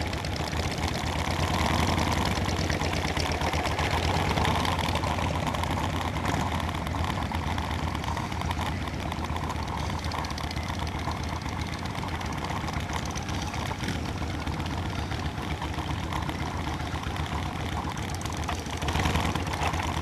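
Motorcycle engine running steadily, slightly louder for a moment a couple of seconds in and again near the end.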